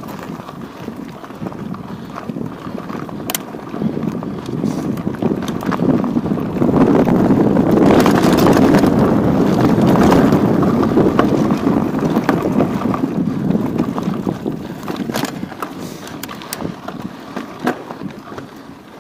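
Wind rushing over the microphone of a chest-mounted action camera while the wearer moves, swelling louder midway and then easing, with scattered clicks and knocks.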